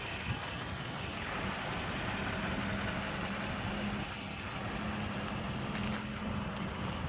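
Steady low mechanical hum over background noise, with a low steady tone running through most of it and a few faint clicks near the end.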